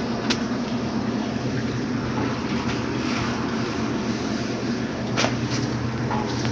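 A steady low mechanical hum, with a few short clicks and knocks from handling the dryer parts while a new drive belt is fitted around the drum.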